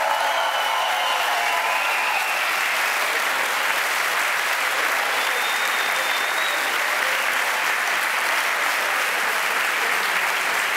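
Large audience applauding steadily, a dense and continuous clapping.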